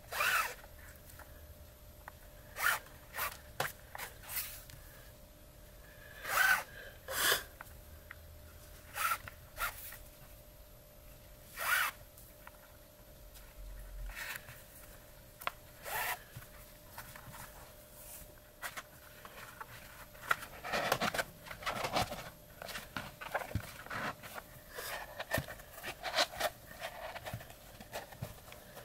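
Leather lacing cord pulled through punched slots in a leather pouch: a series of short, separate zipping rasps. Denser rustling and handling of the leather takes over about two-thirds of the way through.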